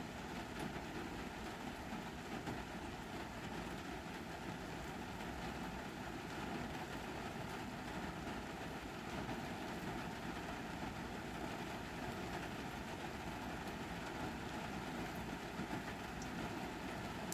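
Steady rain falling, an even hiss of dense, fine patter that does not let up.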